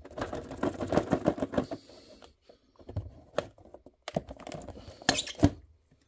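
A cardboard collector box being opened by hand, the tape just cut: rapid clicks and scrapes of card for about two seconds, a few scattered taps, then another burst of scraping near the end as the box comes open onto its plastic tray.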